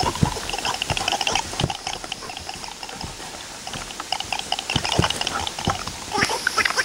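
Scuffling and rustling of a dog romping on grass around a person's feet: an irregular run of short clicks and brushing noises.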